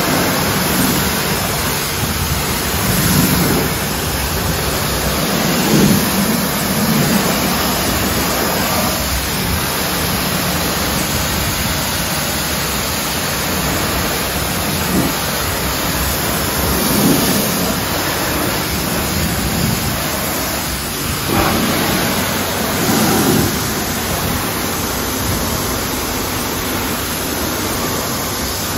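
Pressure-washer jet spraying hard onto a car wheel, tyre and wet pavement, rinsing off wheel cleaner: a loud, steady hiss of spray that swells briefly several times as the jet strikes different surfaces.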